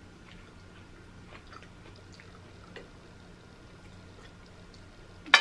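Faint chewing and small wet mouth clicks of someone eating fish, with a light scrape of a spoon digging into the fish. One sudden loud sound comes right at the end.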